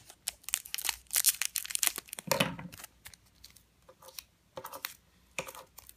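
Foil Pokémon booster-pack wrapper crinkling as it is cut open with scissors, busiest in the first two seconds, then a few soft rustles and taps.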